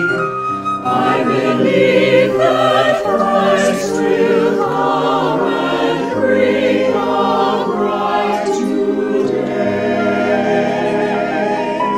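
Mixed church choir singing an anthem in parts, many voices together, with a flute playing along.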